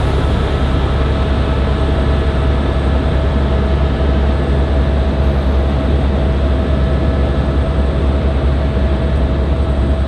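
Helicopter in flight, heard from inside the cabin: the engine and rotor make a loud, steady drone with a heavy low rumble and a constant whine above it.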